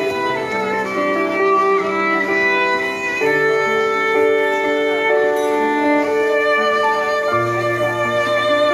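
Slow instrumental music led by a violin, with long held notes over lower parts and a low bass note coming in near the end.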